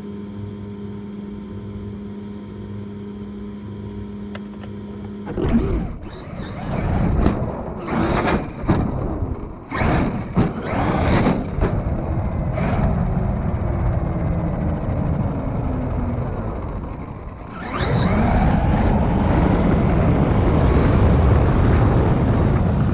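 RC car driving in short stop-start bursts after a steady hum at rest, then running flat out with a rising high-pitched motor whine over the noise of its running.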